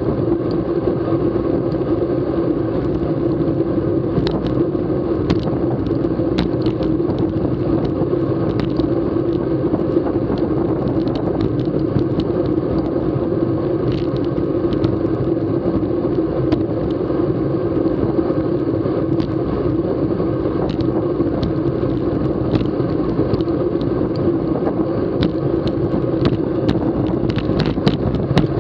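Steady rumbling road noise and wind on the microphone from a road racing bicycle in motion, its tyres running over rough concrete and asphalt, with scattered sharp ticks from bumps in the road surface.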